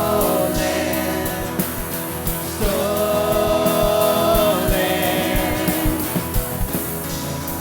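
Live contemporary worship band playing, with singing and a steady drum beat; the word "stolen" is sung at the start, closing the chorus line, and the band plays on without words after it.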